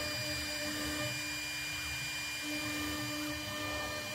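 CNC router spindle running with a steady whine, a little louder and softer by turns, while its bit engraves lines into the spoilboard, over a low rumble from the machine.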